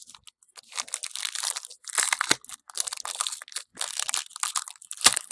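Foil wrapper of a Panini Diamond Kings baseball-card pack being crinkled and torn open, an irregular run of crackly rustles.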